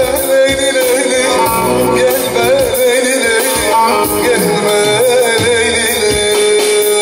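Male voice singing a Teke-region Turkish folk song (türkü) with a wavering, ornamented melody, accompanied by a bağlama (long-necked saz). The line settles into a steadier held note near the end.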